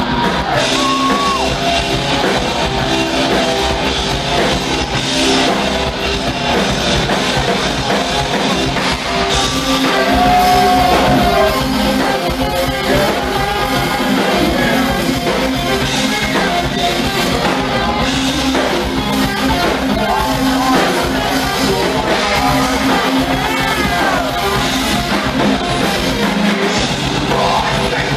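Hard rock band playing live and loud: distorted electric guitars and a drum kit, with a singer's voice over them, heard from among the crowd.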